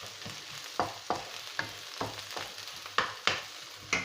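A spoon scraping and knocking against a pan, about a dozen sharp strokes, as boiled mashed potato is stirred into onion and green chilli frying in oil, over a steady sizzle.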